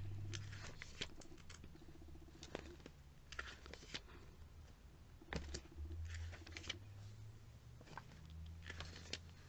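Glossy catalogue pages being turned and handled: faint, scattered paper rustles and flicks at irregular moments over a low hum.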